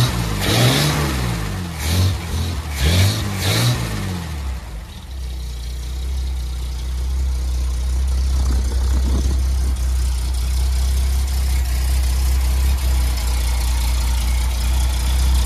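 Freshly rebuilt Bedford 300 six-cylinder engine running on a stand with its rocker gear uncovered, revved up and back down twice, then settling to a steady idle about four and a half seconds in. It was rebuilt after the No. 6 exhaust valve failed.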